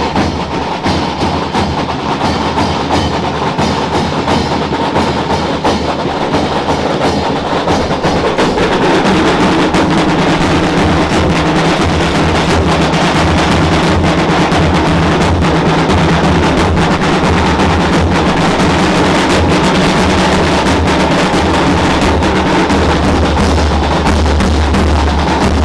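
A street band of large bass drums and a snare drum, beaten with sticks, plays a fast, continuous rhythm. It grows louder and fuller about eight seconds in.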